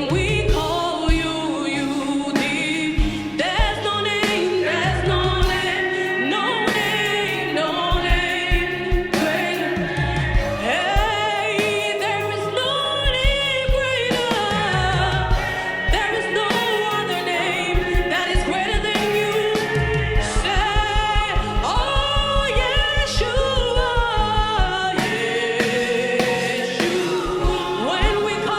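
Gospel praise singing by voices together with a live band, with drums marking the beat; in the last third the drum strokes come fast and even.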